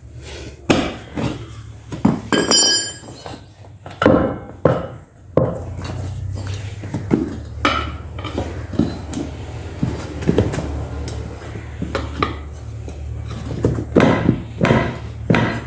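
Metal tools knocking and clinking against a motorcycle wheel during tyre and tube fitting, with one short metallic ring about two seconds in. A steady low hum runs underneath and grows stronger about five seconds in.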